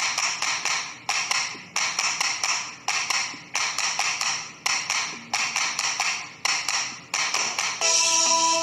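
Metal spatula scraping and knocking against a steel kadai as chicken curry masala is stirred, a little under two strokes a second, each stroke ringing briefly in the pan. Plucked-string background music comes in near the end.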